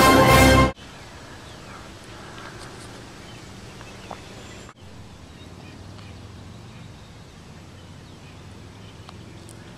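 Title music cuts off within the first second, giving way to steady open-air ambience at a lake shore: an even low hiss with a few faint bird chirps. A single small click comes about four seconds in, and the sound drops out for a moment just after.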